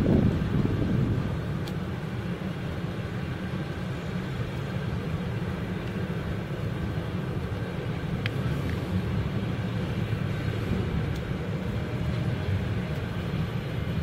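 Freight train of loaded car-carrier wagons rolling past on the rails: a steady low rumble with a few faint clicks.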